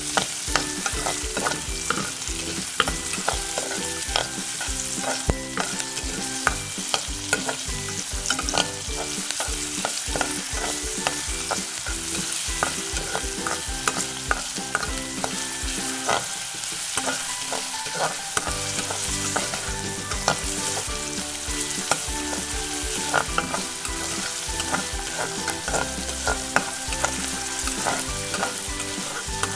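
Chopped onions sizzling in hot oil in a frying pan while a spatula stirs them, scraping and clicking against the pan over a steady frying hiss.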